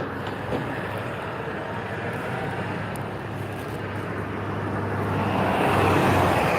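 Steady vehicle or road noise with a low hum, swelling a little about five seconds in, as of a vehicle passing or picking up speed.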